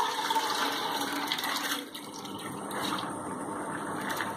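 Water and soaked grains and lentils poured from a plastic bowl into a metal pot of water: a splashing pour. It softens about two seconds in as the grains slide in.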